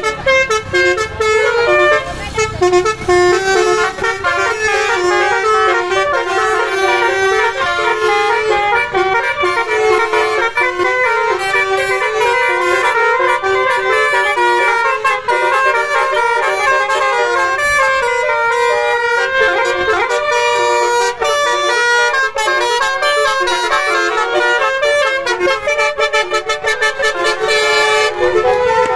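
Basuri telolet musical horn on a car playing a fast tune, its notes stepping up and down in quick succession without a break.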